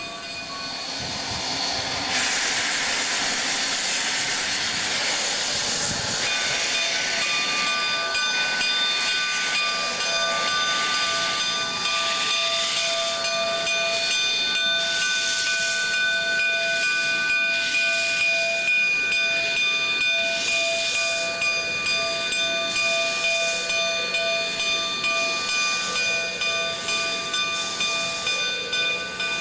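Narrow-gauge steam locomotive blowing off steam with a loud steady hiss. From about six seconds in, a chord of steady high ringing tones sounds over the hiss, and near the end the loudness pulses at an even beat.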